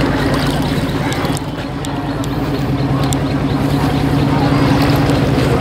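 Small boat engine running with a steady hum that grows a little louder over the last few seconds.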